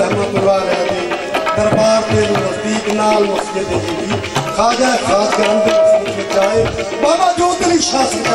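Music led by tabla drumming, with a wavering melody line held and sliding over the beat.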